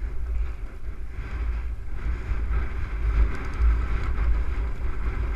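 Wind buffeting the microphone of a camera on a mountain bike descending fast through long grass, with the hiss of the tyres swishing through the grass growing louder from about two seconds in.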